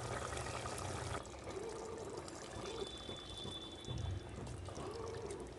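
Mutton curry bubbling in an open pressure cooker as its watery gravy is cooked down to dry off the liquid. About a second in the sound cuts to a quieter bubbling.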